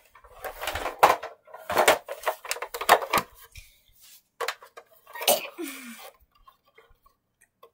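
Hard plastic knocking and clattering as a plastic toy car and stuffed animals are handled and set down on the carpet: a quick run of sharp knocks in the first three seconds, a few more around five seconds in, then it stops about six seconds in.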